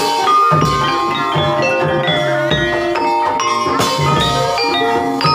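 Javanese gamelan music: a melody of struck mallet-instrument notes over regular drum beats, with no singing.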